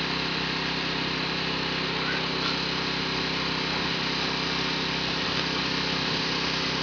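A machine running steadily, an even hum with no change in level.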